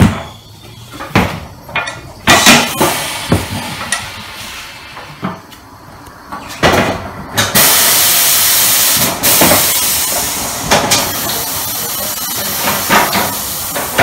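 Clanking of a steel tyre lever and wheel at a tyre-changing machine, then, about halfway through, a loud hiss of compressed air lasting about three seconds that trails off into a softer hiss, with a few more metal knocks near the end.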